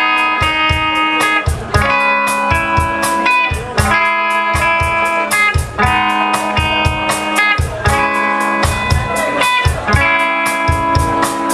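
Live rock band playing an instrumental intro: electric guitar chords that change about every two seconds over a steady, quick drum beat.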